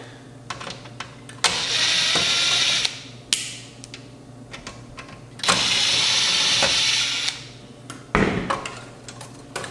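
Small electric screwdriver running in two steady bursts of a second and a half or so each, backing out the screws that hold a card inside the receiver, with light clicks of metal parts near the end.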